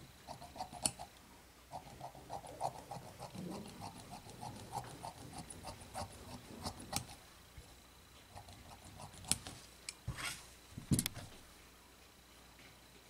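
Long-bladed fabric shears cutting through rayon fabric: a rapid run of small clicking snips for about the first seven seconds. A few louder knocks and rustles follow about nine to eleven seconds in.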